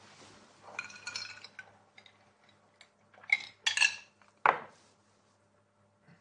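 A small metal ring being handled and set down on a tabletop: soft rustling about a second in, then a few sharp light clinks and taps, the loudest about four and a half seconds in.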